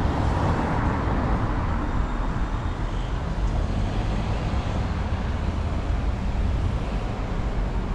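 Road traffic noise from cars, steady, with most of its weight low down.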